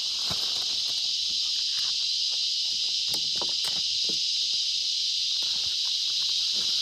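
A steady, high-pitched drone of insects, with a few faint knocks and rustles.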